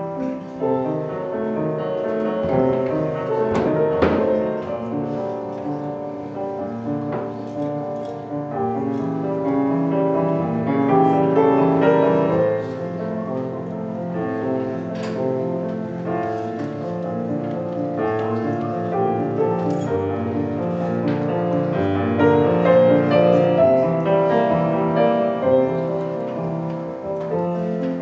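A grand piano played solo, with chords and melody sounding continuously as a live performance.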